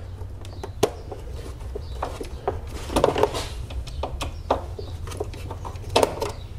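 Torx screwdriver being turned by hand to back out a screw from the plastic radiator support, giving scattered clicks and short scrapes of the bit and plastic. A small cluster comes about three seconds in and another near the end, over a steady low hum.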